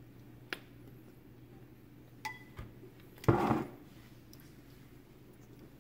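Kitchen clinks and clatter: a spoon knocking against a ceramic sauce bowl and a sauce bottle being handled, with a click, two short ringing clinks and one louder clatter about three seconds in. A low steady hum runs underneath.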